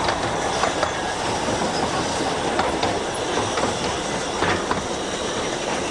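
A 15-inch-gauge railway carriage rolling slowly along the track, heard from on board: a steady wheel rumble with irregular clicks over the rail joints.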